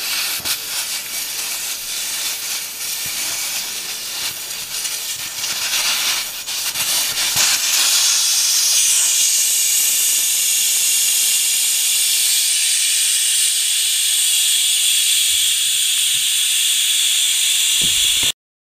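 Air hissing out of a 2009 Yamaha R1 front tire through its valve stem as the Schrader valve core is worked out to deflate it. The hiss turns louder and steadier about eight seconds in, then cuts off suddenly near the end.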